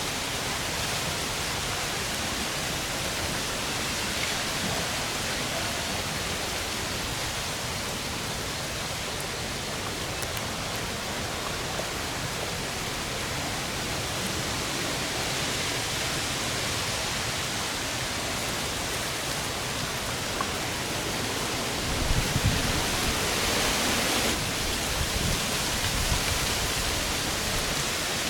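Steady rain-like hiss of falling water. Low thumps and rumbles come in over the last few seconds.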